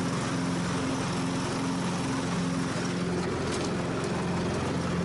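Craftsman lawn tractor engine running steadily at a constant speed.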